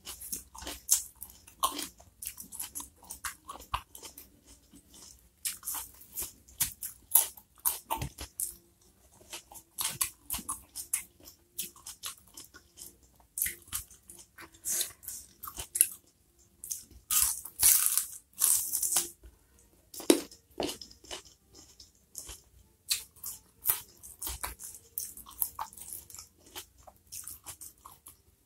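Close-up crunchy chewing and biting of raw okra dipped in sambal, with many sharp, irregular crunches and short pauses between mouthfuls.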